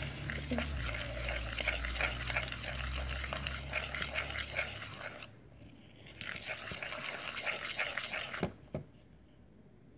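Salt dough of flour, salt and too much water being stirred in a bowl: quick wet scraping and squelching, with a short pause midway, then two light knocks near the end.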